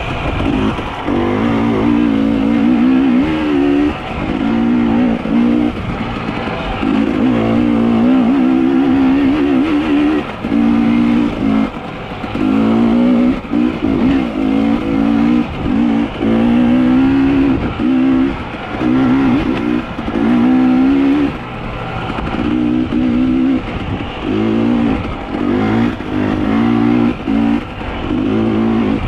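A small petrol engine revved hard in repeated bursts of a second or two, its pitch wobbling up and dropping back between bursts.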